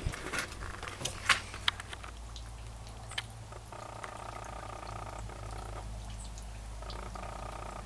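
Handling noise as the camera is brought down onto the rod: a few sharp clicks and knocks in the first two seconds, then a faint steady low hum with a buzzing tone that comes and goes.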